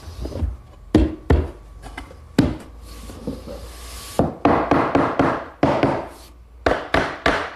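Irregular sharp knocks and taps on wood, with a stretch of rough scraping in the middle, from wooden parts of the plywood saw station being worked and handled.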